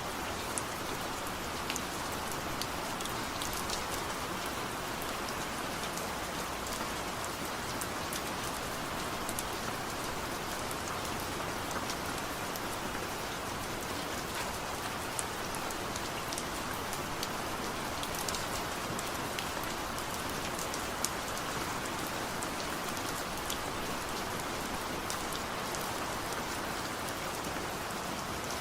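Steady light rain falling, an even hiss with scattered small drop ticks and no thunder.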